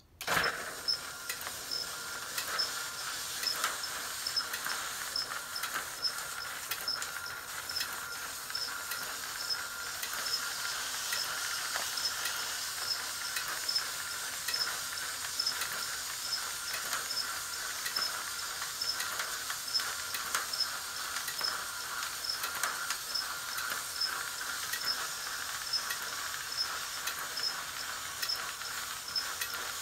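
JR 103 series motor-driven destination roll sign winding its film continuously through the destinations: a steady whirring hiss with a faint high hum and a light regular tick about twice a second. It starts suddenly just after the beginning.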